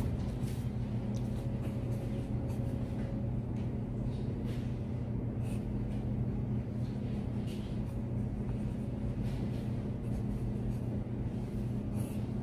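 Pen scratching and tapping lightly on paper worksheets, in short irregular strokes, over a steady low hum.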